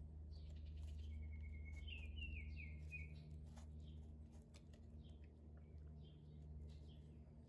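Faint birdsong in the background: a quick run of short chirps about one to three seconds in, with scattered single chirps after, over a low steady hum. A few light clicks come from the plastic caps being worked off the electrolyte bottles.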